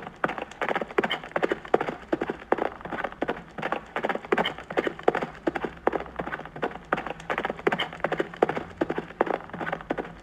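Horse hooves clip-clopping: a quick, uneven stream of hoofbeats.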